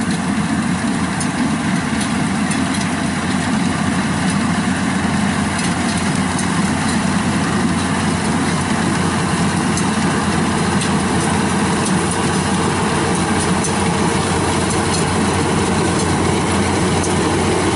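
Yanmar 82V rice combine harvester running steadily under load as it cuts and threshes rice, its diesel engine and machinery making an even, continuous drone.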